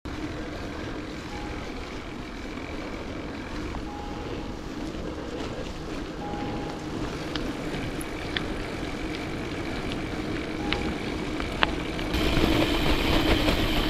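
Steady wind rush and tyre noise from a gravel bike rolling along a paved lane, picked up by a camera mounted on the handlebars, with a few sharp clicks. It turns louder about twelve seconds in.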